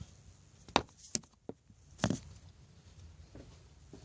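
A few light, sharp knocks and clicks, spaced irregularly, from bar stool parts being picked up and handled.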